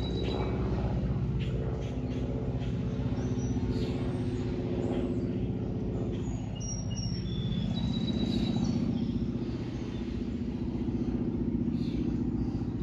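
Piston-engined propeller aircraft flying over, its engine droning, the pitch drifting as it passes. Short bird chirps over it.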